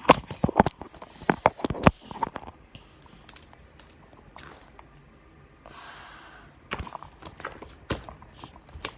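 Slime being handled and squished by hand, giving a run of sharp wet clicks and pops that crowd together in the first two seconds and come only now and then after that.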